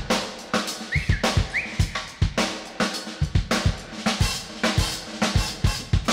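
Drum kit played live with sticks: kick drum, snare and cymbals struck in a busy rhythmic pattern of several hits a second.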